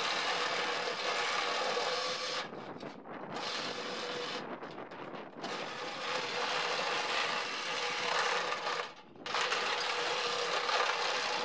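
Handheld power tool running against a metal rain gutter section, working the metal in several long stretches with a short stop about nine seconds in.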